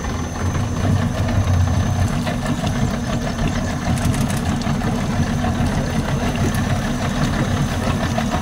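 Steady low rumble of an idling motor engine, running evenly throughout.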